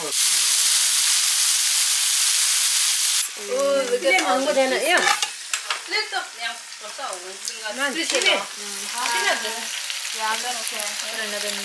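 Food sizzling on a home barbecue grill, loud and hissing for about the first three seconds, then quieter under indistinct voices chattering.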